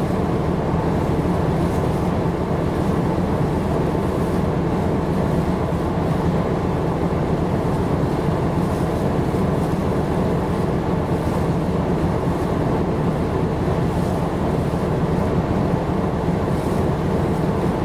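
Steady low drone of a ship's engine heard from on board, unchanging throughout.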